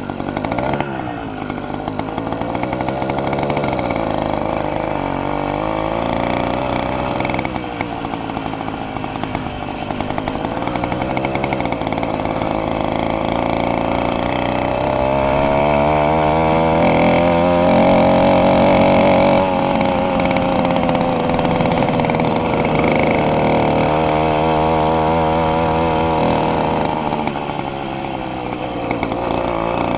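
A homebuilt motorized bicycle's 60cc two-stroke engine runs under way, its pitch rising and falling with the throttle. It climbs to its highest about halfway through and eases off near the end.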